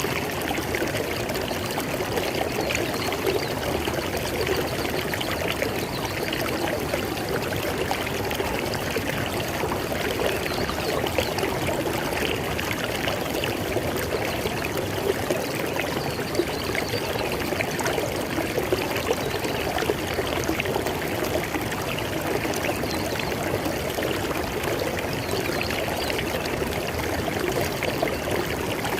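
River water flowing steadily over rocks, an even rushing and splashing with no pauses.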